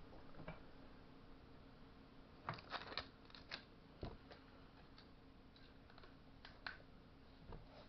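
Small metal parts clicking and clinking as they are handled and fitted by hand: bolts and washers. There is a quick run of clicks a few seconds in and a few single clicks after it, over a faint steady hum.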